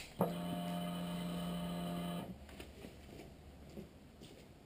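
A click as the ignition of a Honda CB1000R is switched on, then the fuel pump hums steadily for about two seconds as it primes the fuel system, and stops.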